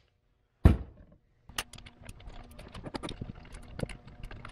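A single knock about half a second in, then a run of small clicks, taps and rustles as hands handle an engine wiring harness and its plastic connectors on an intake manifold.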